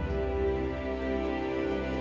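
Slow instrumental music with long held notes over a steady low bass, played back through Revel PerformaBE M126BE bookshelf speakers with a beryllium tweeter and ceramic woofer.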